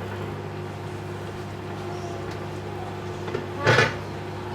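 Whirlpool microwave oven running with a steady hum, and a single popcorn kernel popping loudly about three and a half seconds in, with a faint tick just before it.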